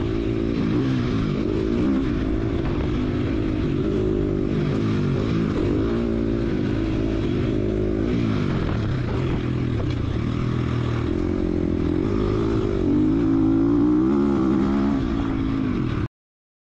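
KTM SX-F 250 dirt bike's single-cylinder four-stroke engine being ridden hard, its pitch rising and falling as the rider works the throttle. The sound cuts off suddenly near the end.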